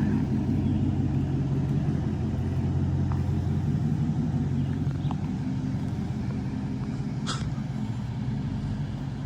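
Chrysler 300's engine and exhaust running steadily with a low rumble, easing slightly toward the end.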